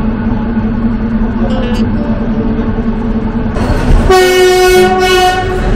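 Tourist train heard from inside a wooden carriage: a steady low hum, then about four seconds in the locomotive sounds its horn for about a second and a half as the train pulls out of the station.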